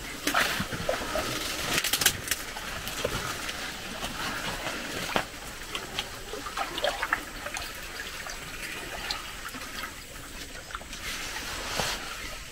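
Shallow swamp water trickling and lightly splashing as a fishing lure is worked across the surface, with scattered small clicks and taps. The clicks are sharpest about 2 and 5 seconds in.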